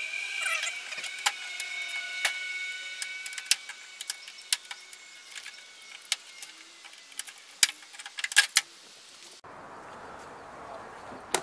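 Scattered sharp metallic clicks and clinks of a screwdriver working small screws loose from a trim piece on the underside of a car bonnet. A thin high tone hangs under the first few seconds. About nine seconds in, the clicking stops and a steady outdoor hiss takes over.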